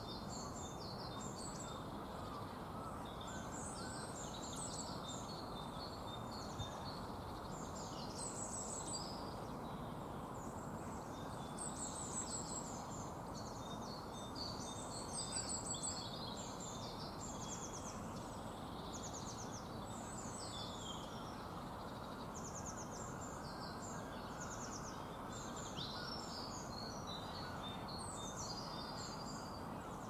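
Several small songbirds singing and twittering in short, varied high phrases over a steady low background hum.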